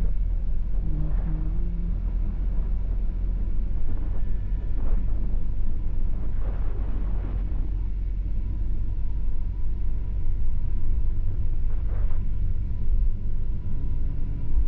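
Vehicle driving along the road: a steady low engine and road rumble. The engine note rises briefly about a second in and again near the end as the vehicle accelerates.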